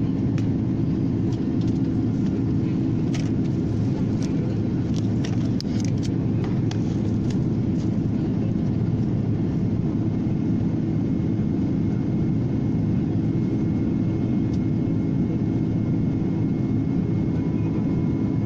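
Steady low rumble of airliner cabin noise in flight, the engines and rushing air, with a few faint clicks a few seconds in.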